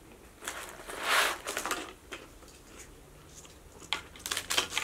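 Close-mic eating sounds: a soft rustle about a second in, then a few quick crackles near the end as fingers pick at crinkle-cut fries in their paper carton.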